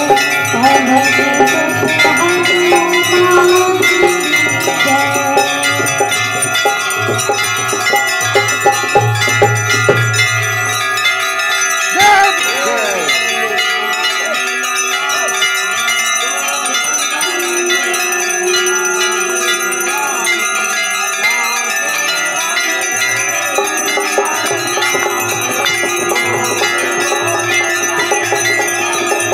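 Large hanging brass temple bells being rung by hand over and over, many clangs overlapping into a dense, continuous ringing of several tones at once.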